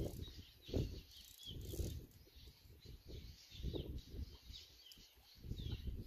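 Small birds chirping in short, scattered calls, over an uneven low rumble of wind buffeting the microphone that swells and fades every second or so.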